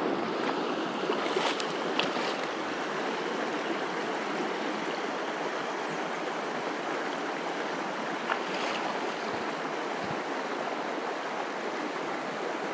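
River water rushing steadily over shallow riffles, with a few faint clicks in the first couple of seconds.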